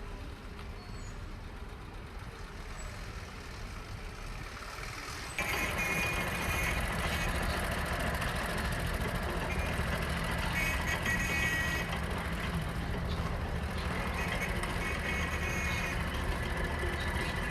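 Road traffic and heavy vehicles running. About five seconds in it suddenly gets louder, and short high-pitched tones sound on and off.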